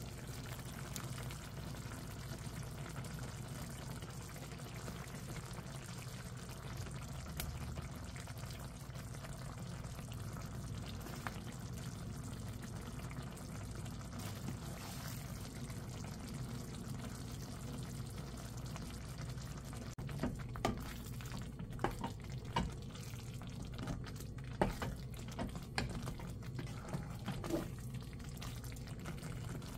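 Thick tomato curry simmering and bubbling in a pot on the stove, with a steady low hiss. From about twenty seconds in, a wooden spatula knocks and scrapes against the pot in a run of separate clicks as the curry is stirred.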